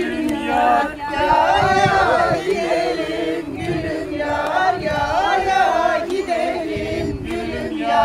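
A group of people singing a folk song together for a halay line dance, many voices at once, loud and steady throughout.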